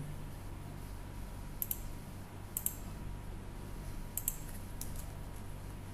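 Clicks of a computer mouse and keyboard, several in close pairs, over a steady low hum.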